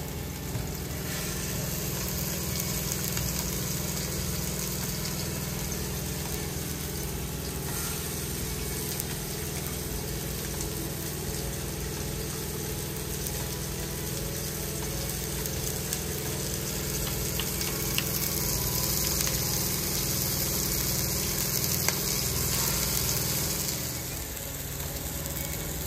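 Balls of ground beef sizzling in a frying pan on a gas stove over a steady low hum. The sizzle grows louder about two-thirds of the way through, then drops near the end.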